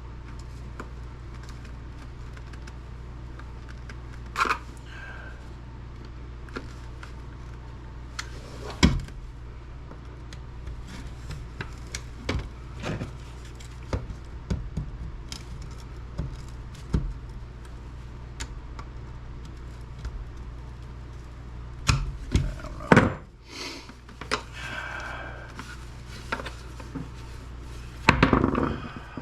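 Plastic housing of a food processor being handled and pried at: scattered clicks, scrapes and knocks, with a few louder thunks about 9 s and 23 s in and near the end, over a steady low hum.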